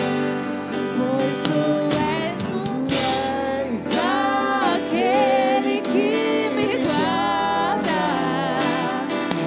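Live acoustic worship music: a voice carrying a wavering melody over acoustic guitar accompaniment.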